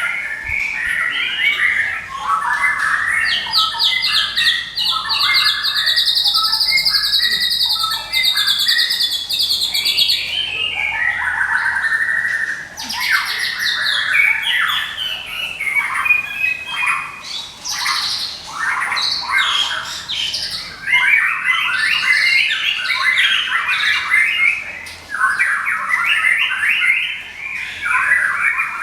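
White-rumped shama of the Medan strain singing non-stop: a dense, unbroken run of rapid chattering 'ngekek' calls mixed with varied phrases. From about three to ten seconds in there is a higher, buzzing rattle.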